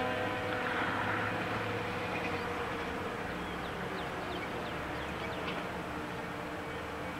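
The last of a tornado siren's tone fading out right at the start, leaving a steady background rumble outdoors. A few short high chirps come through in the middle.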